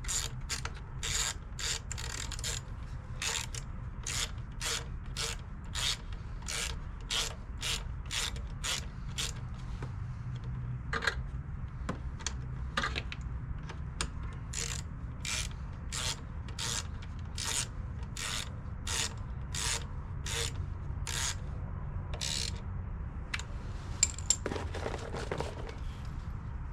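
Hand ratchet wrench clicking in steady strokes, about two clicks a second, as bolts are run in or out, with a pause partway through. A low steady hum runs underneath, and two sharper knocks come near the end.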